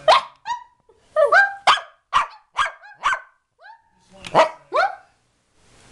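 Small long-haired dog giving a quick run of short, high barks and yips, about two a second with a brief pause midway, some bending up and then down in pitch: the dog's 'talking' bark.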